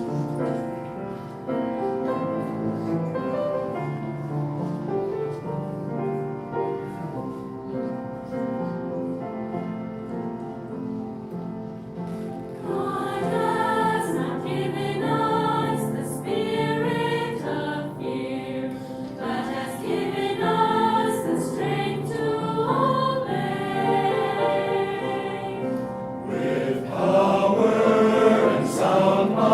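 Gospel choir music: a sustained instrumental passage, with choir singing coming in about halfway and swelling again near the end.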